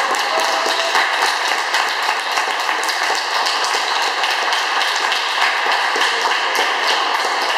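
Audience applauding: a dense, steady clatter of many hands clapping at an even level.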